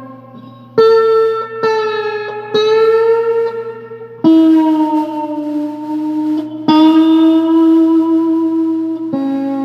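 Background music: slow guitar, single notes struck every second or two and left to ring with reverb, the pitch bending slightly on some.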